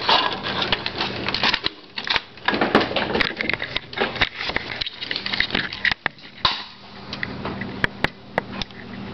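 Irregular plastic clicking and rattling of an airsoft gun being loaded by hand.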